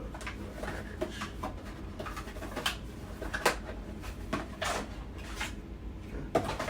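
Cardboard CPU box and its packing being handled: scattered rustles and light clicks, with a few sharper knocks as pieces are moved and set down.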